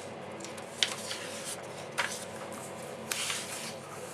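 Small handling noises: a sharp tap a little under a second in, another about two seconds in, and a brief scratchy rustle about three seconds in, over a steady low room hum.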